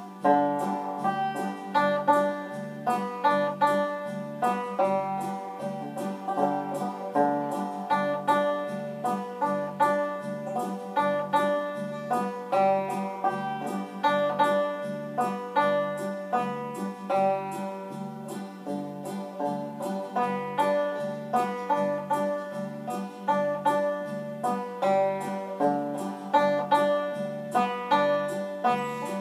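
Banjo played solo, a steady stream of quickly picked notes over a regularly repeating low note.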